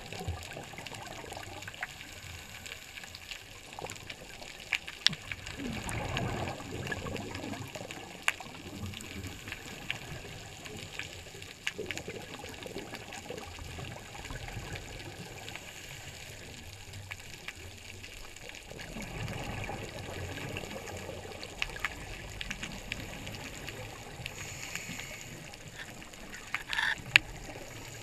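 Underwater sound picked up through a diving camera housing: a scuba diver's exhaled bubbles gurgling and rumbling in swells every several seconds, with scattered sharp clicks and a brief louder burst near the end.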